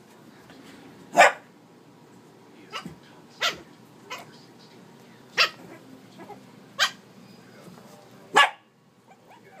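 A dog barking: about seven short, sharp barks at uneven gaps, the loudest about a second in and near the end.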